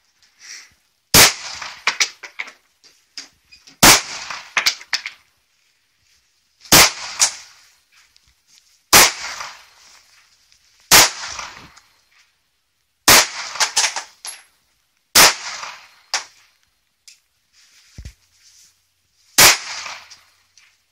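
Pistol fired one shot at a time, about eight sharp shots spaced roughly two seconds apart, each followed by a short echo.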